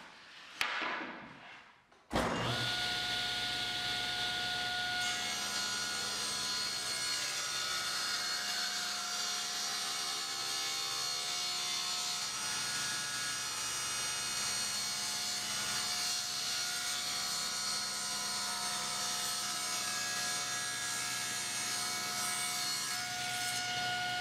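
A board is set down on the table with a few light knocks, then a table saw switches on about two seconds in and runs with a steady whine. A board is ripped through the spinning blade for most of the time, and the whine grows clearer again near the end as the blade runs free after the cut.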